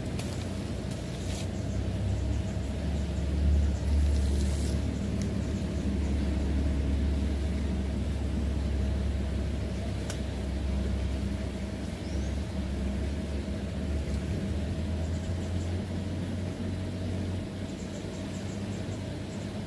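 Steady low rumble and hiss of a fast-flowing, swollen muddy river, swelling a little a few seconds in, with a few light clicks near the start and again about four and ten seconds in.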